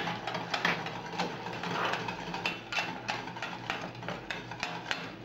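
A spoon stirring simmering cream sauce in a stainless steel saucepan, clicking and scraping against the pan in quick irregular taps, about three a second, over a low steady hum.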